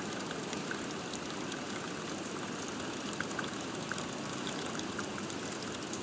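Water running from a pedestal drinking fountain and splashing steadily onto the wet concrete, with a few faint drips and ticks.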